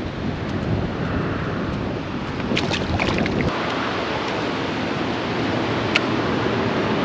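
Wind buffeting the microphone over water lapping around a kayak; the low rumble of the wind drops away about halfway through. A few light clicks are heard, including one about a second before the end.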